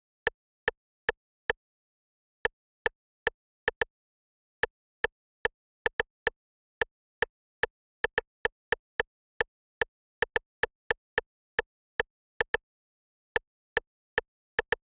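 A very short, dry percussive click sample repeated in a syncopated Brazilian-funk-style beat pattern, each hit sharp and identical, with silence between hits.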